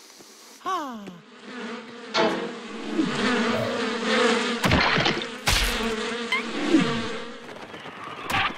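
Cartoon swarm of bees buzzing, a dense, steady drone that swells as the swarm attacks. A couple of sharp hits land in the middle.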